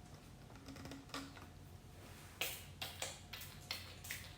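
Trigger spray bottle misting a liquid home fragrance: about six short hissing sprays in quick succession, starting about halfway through, after a few faint clicks.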